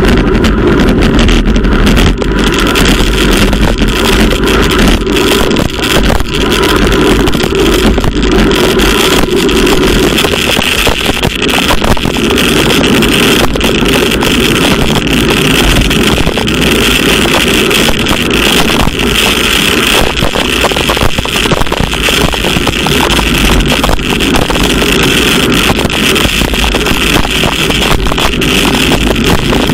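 Steady rush of wind over a bike-mounted camera's microphone and road-bike tyres hissing on a wet road at about 40 km/h, unbroken throughout.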